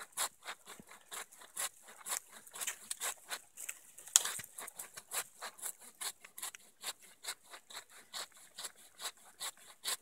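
Silky F-180 folding pull-stroke saw cutting through the trunk of a small conifer, in quick steady rasping strokes about three a second. One sharper click comes about four seconds in.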